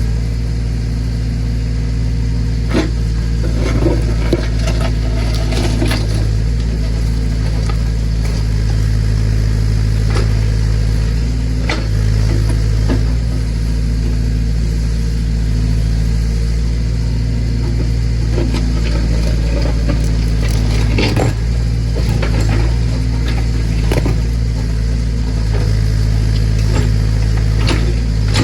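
Massey Ferguson BX 50 backhoe digging, its tractor engine running steadily under the hydraulics, with scattered knocks and scrapes from the bucket working the ground.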